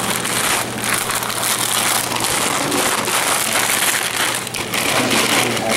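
Onion, pear, apple and cranberries sautéing in butter in a frying pan: a continuous sizzle with fine irregular crackling.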